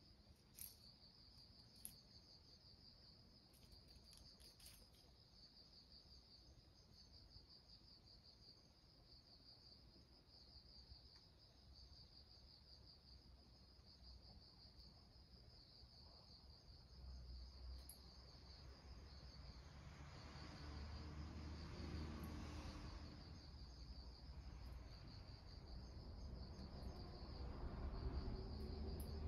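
Faint insect chirring: a steady, high, pulsing trill that runs on without a break. A low rumble grows louder in the second half.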